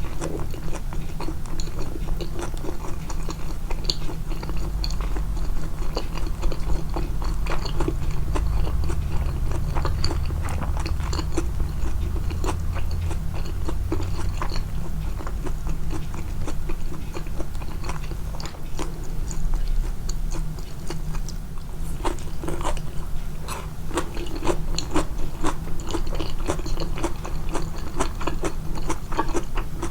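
Close-miked chewing and biting, a person eating with frequent crisp crunches, the eating sounds boosted in the mix. The crunches come thick and fast over the last several seconds.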